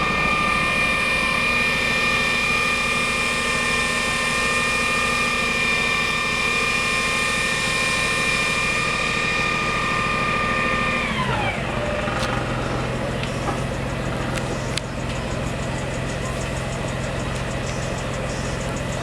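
An engine running steadily at high revs, then winding down sharply to a lower, steady idle about eleven seconds in. A few faint clicks follow.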